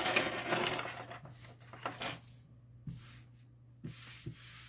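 Hands handling small objects on a work surface: irregular rustling and rubbing with a few light clicks and knocks, over a steady low hum.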